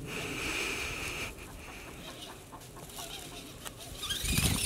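Radio-controlled monster truck's motor whining steadily for about the first second as it drives over grass and leaves, then going quieter, while a barred rooster clucks.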